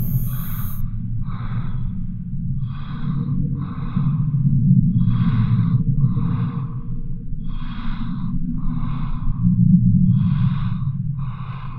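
Heavy rhythmic breathing, breaths coming about once a second, over a steady low drone. A faint steady tone joins the drone about three seconds in.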